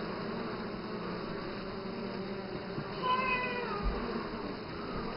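A package of Italian honey bees buzzing steadily behind a wire screen. About three seconds in, a short high cry falls in pitch for under a second.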